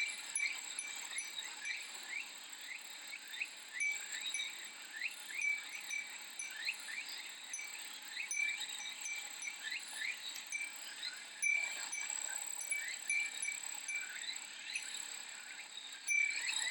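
Cicadas droning steadily in a summer chorus, with short rising chirps repeating a couple of times a second, while a Japanese fūrin wind chime rings lightly now and then.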